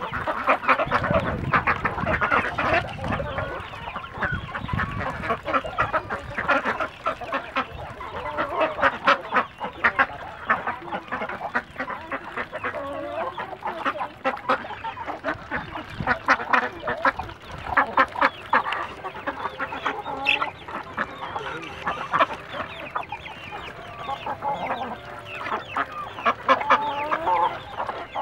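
A flock of domestic ducks quacking and calling continuously in an irregular chorus, with chickens clucking among them.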